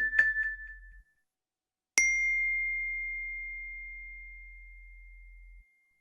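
Two iPhone alert tones. First a short flurry of high pings lasting about a second, then a single bell-like strike about two seconds in that rings on one high note and slowly fades over about three and a half seconds.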